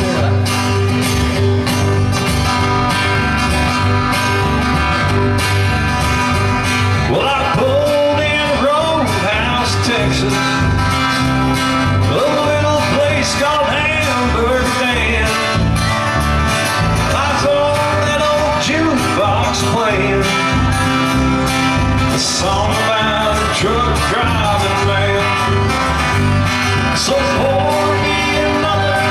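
Live country band playing an upbeat song on acoustic guitars, electric guitar and upright bass, with singing coming in about seven seconds in.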